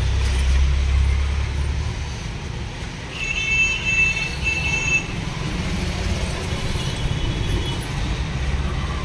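Street traffic noise with the low rumble of vehicles, loudest in the first two seconds. A high-pitched vehicle horn sounds in three short toots about three seconds in.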